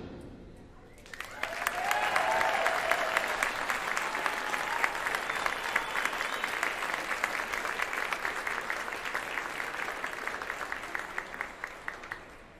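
The tail of the concert band's final chord dies away in the first second, then a small audience applauds, starting about a second in and thinning out near the end.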